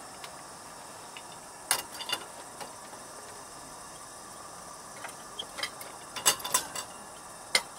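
Clinks and knocks of a lantern's glass globe and wire guard being fitted onto the base, then its top being set on: a few clicks about two seconds in and a cluster from about five seconds to near the end. Crickets chirp steadily underneath.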